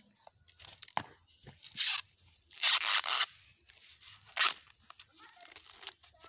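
Green husks being torn and stripped by hand from a fresh ear of maize: several rustling rips, the longest and loudest about three seconds in and another near four and a half seconds.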